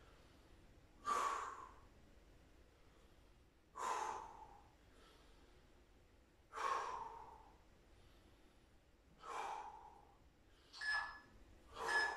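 A man breathing out hard under exertion while holding a side plank, one long audible exhalation about every three seconds; near the end the breaths come shorter and quicker.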